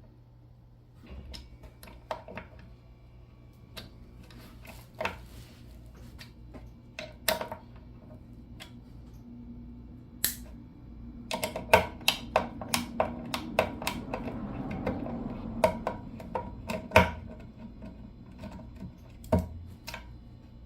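Metal multitool being handled, its folding tools clicking and snapping as they are worked open and shut. The clicks are irregular, and they come thickest in the second half.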